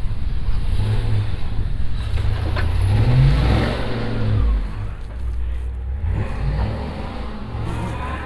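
Engine of a vehicle stuck in deep snow, revving as it tries to get traction, the note rising briefly about three seconds in.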